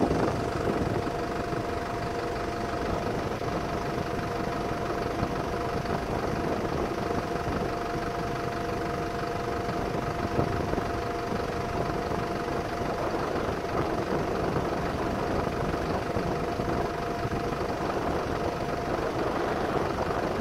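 An engine running steadily, with a constant mid-pitched hum over a rushing noise.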